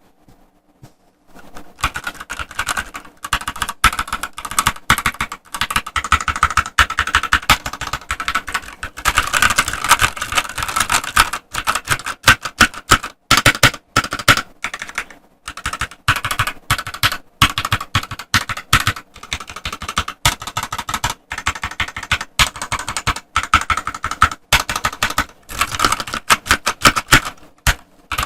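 Typing test on a Rexus Daxa M64 mechanical keyboard with Gateron KS9 yellow switches and PBT keycaps: fast, continuous keystroke clacking that starts about a second in, with a few brief pauses.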